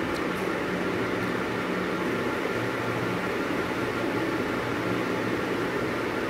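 Steady mechanical whir with a low hum from a running motor-driven appliance, with two faint light clicks near the start.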